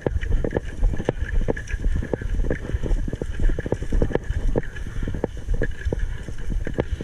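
Wind rumbling on the microphone, with a run of irregular sharp knocks and clicks.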